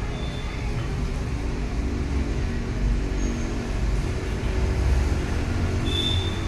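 A steady low rumble, with a brief high tone near the end.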